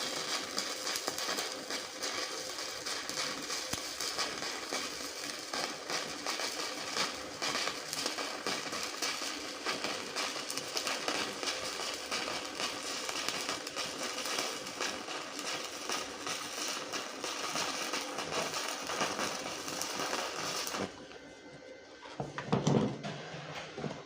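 Stick (shielded metal arc) welding arc crackling and sizzling steadily, cutting off suddenly about 21 seconds in as the arc is broken. A brief low thump follows near the end.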